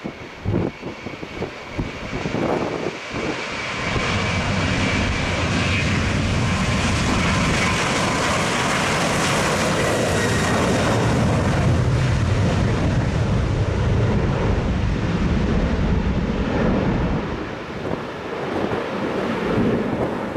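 Boeing 737 jet engines at takeoff thrust, swelling into a loud steady noise with a high whine and then easing off near the end. Wind buffets the microphone in gusty thumps in the first few seconds.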